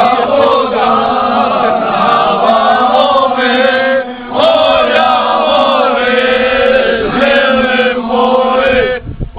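A group of young men singing together unaccompanied, loud and in long held notes, breaking off briefly about four seconds in and again near the end.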